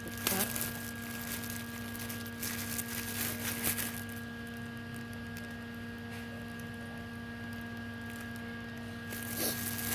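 Rustling and handling noises in the first four seconds and again near the end, over a steady electrical hum.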